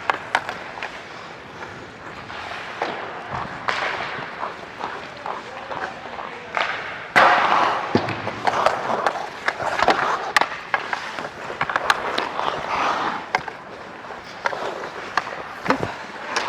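Ice hockey skates scraping and carving on the ice, with sharp clacks of sticks and puck, heard up close through a player-worn mic. The scraping is loudest about seven seconds in.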